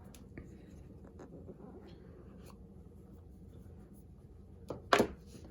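Paper pull-tab seal on an iPhone 13 box being pulled and torn open: faint scratchy rustling with small clicks, then one louder, short tearing scrape near the end.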